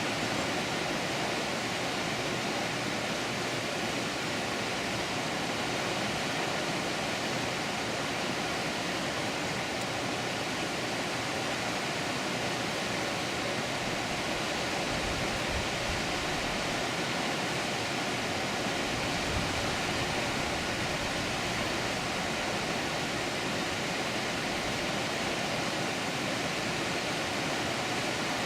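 Water pouring steadily over a dam, an even, unbroken rushing with brief low rumbles now and then.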